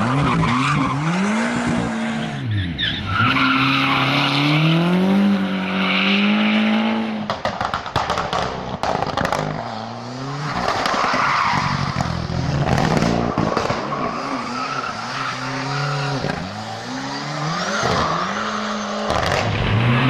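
Ford Cosworth rally car's turbocharged four-cylinder engine revving hard through its gears, the engine note climbing and dropping again and again as the car is driven flat out on a tarmac rally stage.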